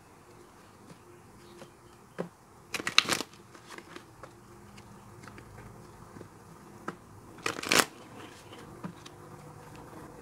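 Tarot cards shuffled by hand: two short riffling bursts, about three and about seven and a half seconds in, with soft card taps between.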